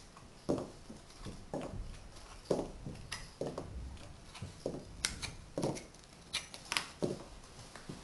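Magnetic hardwood toy blocks (Tegu) being set down on a tabletop and pulled from a stack one after another: about a dozen irregularly spaced wooden knocks and clacks.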